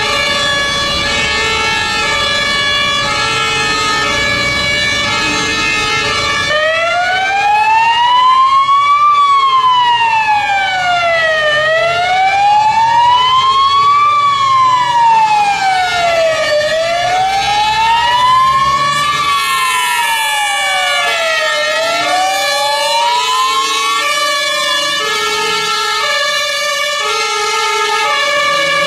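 Belgian emergency vehicle sirens sounding together: a two-tone siren alternating steadily between a high and a low note, joined from about six seconds in by a slow wailing siren that rises and falls about every five seconds, four times, before it stops near the end.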